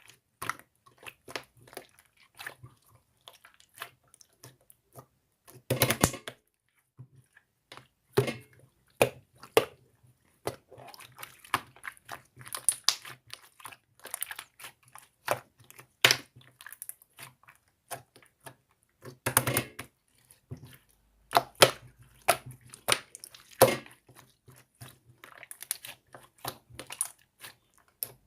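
Close-up, irregular small clicks, crackles and crunches, with a few denser bursts of crunching spread through.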